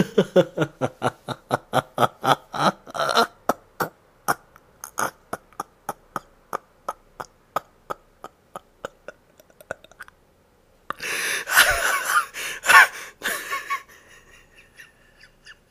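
A person laughing hard: a fast run of short bursts, about four a second, that slows and thins out into faint spaced pulses, then a louder breathy burst of laughter about eleven seconds in that fades back to faint pulses.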